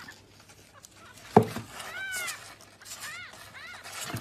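Newborn kitten mewing: a few short, high-pitched cries that rise and fall, from about two seconds in. A single sharp knock about a second in is the loudest sound.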